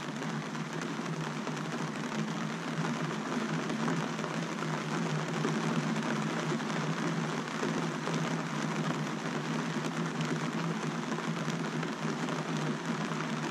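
Rain pattering steadily on a sailboat's canvas and clear-vinyl cockpit enclosure, a dense even hiss of drops, with a low steady hum underneath.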